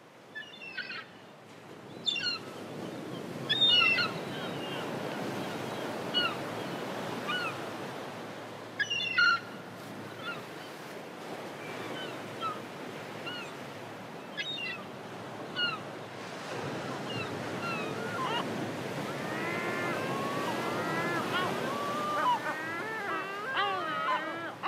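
Ocean surf washing steadily onto a beach, fading in over the first couple of seconds. Short bird chirps are scattered over it, thickening into a chatter of many overlapping bird calls in the last several seconds.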